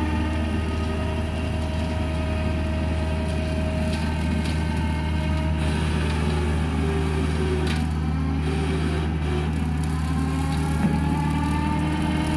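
Kubota compact excavator's diesel engine running steadily, with a whine that slowly rises and falls as the hydraulic brush-cutting work loads it. A few sharp snaps come through around the middle.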